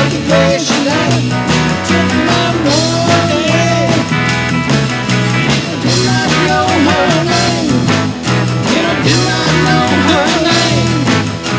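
Rock band playing an instrumental break at a steady beat: acoustic and electric guitars, bass guitar and an Alesis electronic drum kit, with a harmonica lead bending its notes over the top.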